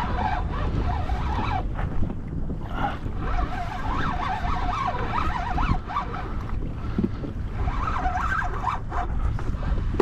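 Wind buffeting the microphone on open water, a steady low rumble, with a wavering high-pitched whine that comes and goes over it.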